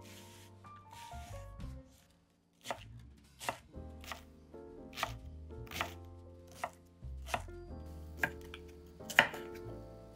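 Knife chopping food on a cutting board: a run of single strokes roughly a second apart, starting about two and a half seconds in, with the loudest stroke near the end. Soft background music plays underneath.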